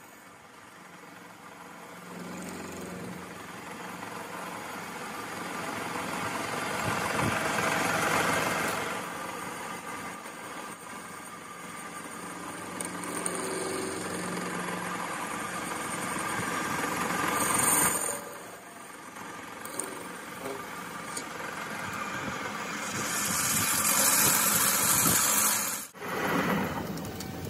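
Metal lathe running while its cutting tool bores out the inner bore of a steel gearbox gear, shearing off curled steel swarf. It is a steady machining noise that grows louder about a third of the way in and again near the end, then drops off sharply just before the end.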